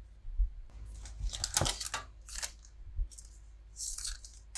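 Pokémon trading cards being handled: the cards slide and scrape against one another in a few short rustles, the strongest from about one to two and a half seconds in, with a few soft low bumps.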